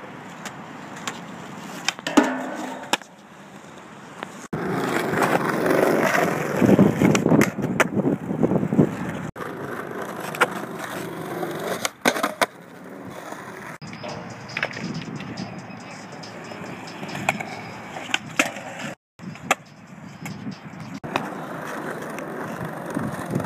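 Skateboard wheels rolling on smooth concrete, with sharp clacks of the board striking the ground now and then. The sound changes abruptly several times where separate takes are cut together.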